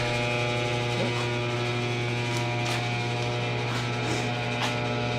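Steady electrical mains hum with a few faint ticks from about two seconds in.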